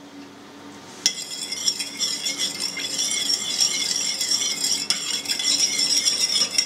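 Metal spoon stirring warm water in a mixing bowl to dissolve sugar for a yeast dough, scraping and clinking against the bowl without a break. It starts with a sharp clink about a second in.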